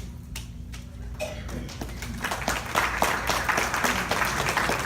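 Audience applauding, starting about two seconds in and swelling into steady clapping.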